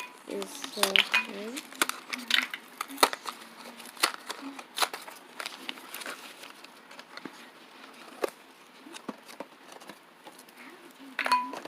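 Plastic toy packaging from Kinder Joy eggs crinkling, with scattered sharp clicks and snaps as the capsules and wrappers are handled and opened by hand.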